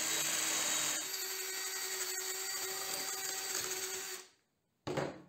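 Drill with a 6 mm bit running as it cuts through a small metal bushing clamped in a vise, widening its hole to 6 mm; the note steps up slightly about a second in, and the drill stops about four seconds in. A short noise follows near the end.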